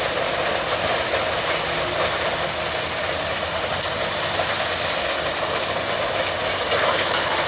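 Mobile rubble crusher running, crushing demolition concrete and rattling the broken stone along its conveyors in a steady, unbroken clatter.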